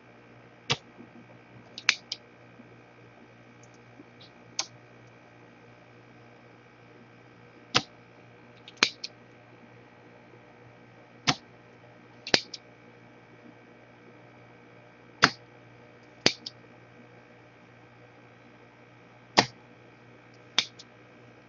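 Sharp clicks, often two about a second apart, recurring every three to four seconds over a steady low electrical hum.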